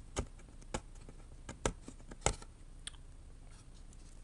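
Laptop parts being handled during disassembly: about six sharp, irregular clicks and taps of hard parts being picked up and set down.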